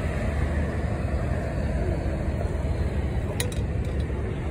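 Steady low rumbling background noise, with a brief click about three and a half seconds in.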